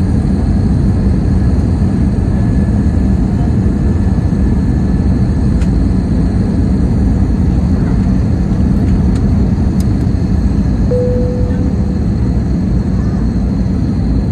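Steady cabin noise inside an Airbus A320neo on its descent: the drone of its Pratt & Whitney geared turbofan engines and the airflow over the fuselage, with a steady low hum underneath. A short faint tone sounds about eleven seconds in.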